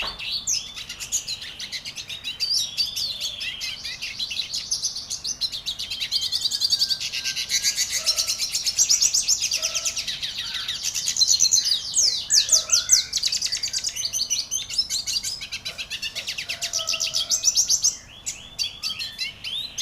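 A songbird singing continuously: fast high-pitched trills and chirps, with a short break a couple of seconds before the end.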